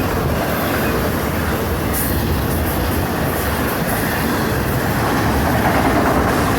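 Florida East Coast freight train passing close by at speed: a steady, loud rumble of steel wheels running on the rails.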